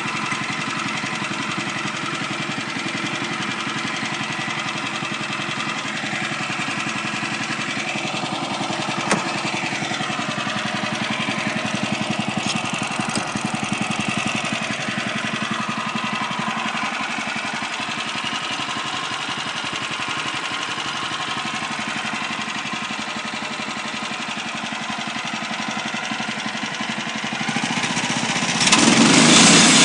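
Woodland Mills HM126 portable bandsaw mill's gas engine running steadily, with a single click about a third of the way in. Near the end the sound gets suddenly louder as the mill goes into its cut.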